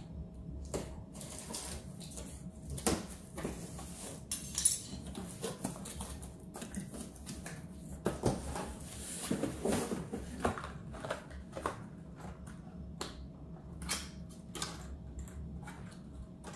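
Cardboard boxes and packaging being handled and opened by hand: irregular rustles, scrapes and sharp knocks and clatters, the loudest around a few seconds in and again near the middle.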